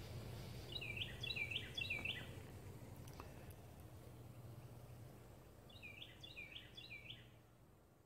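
A songbird singing a quick phrase of three repeated notes about a second in, and the same phrase again about six seconds in, over a faint low steady background hum.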